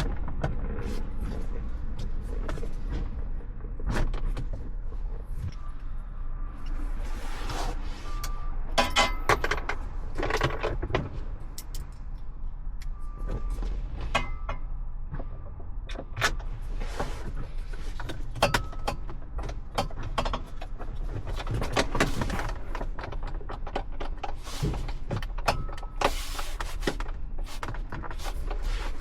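Hands and tools working the instrument-cluster mounting bolts and plastic trim inside a car dashboard: repeated clicks, knocks and scraping, with a few short whirs, over a steady low rumble.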